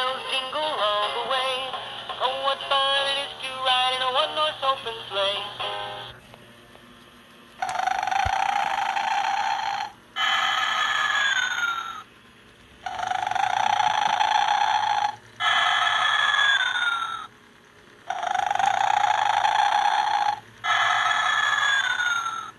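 A battery-operated animated Santa plush sings a Christmas song in a tinny electronic voice for about six seconds. After a short pause, an animated sleeping Santa figure snores three times, each snore a noisy in-breath followed by a whistle on the out-breath that falls in pitch.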